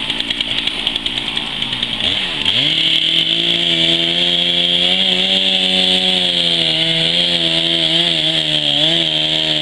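Two-stroke chainsaw felling a gum tree: it revs up about two seconds in, then runs steadily at high revs with small dips in pitch.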